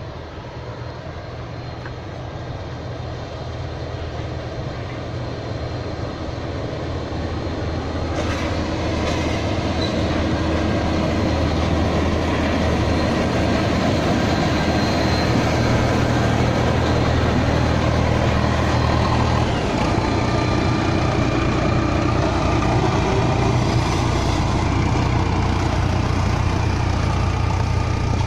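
Diesel engine of a VR Class Dv12 locomotive, a V16 diesel-hydraulic, running at a steady low note as it comes up slowly, growing louder over the first dozen seconds as it nears and passes close by. A little after halfway the engine note shifts as the same locomotive is heard approaching again.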